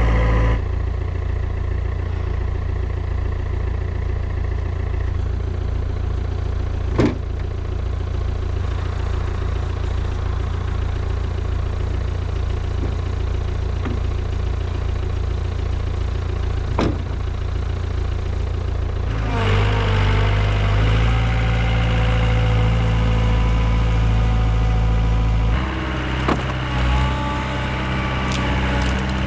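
Diesel engine of a compact Yanmar machine running steadily, its note changing twice in the second half. Two short sharp knocks sound in the first part.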